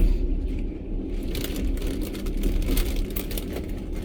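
Steady low rumble of a passenger train running, heard inside the carriage, with a dense crinkling rustle starting about a second in, like a food wrapper or snack packet being handled.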